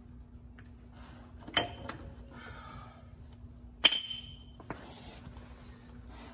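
Steel tools and parts clinking on a railcar truck's journal box and pedestal. There is a sharp clink about a second and a half in and a little scraping. About four seconds in comes a harder metallic strike that rings briefly and high, then a lighter knock, all over a steady low hum.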